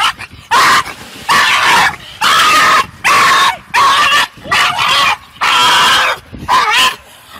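A dog yelping and whining loudly in a rapid series of high cries, about eight in a row, each roughly half a second long.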